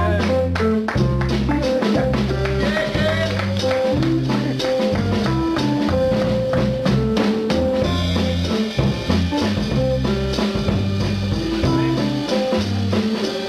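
Instrumental music with a drum kit, a bass line and a melody line.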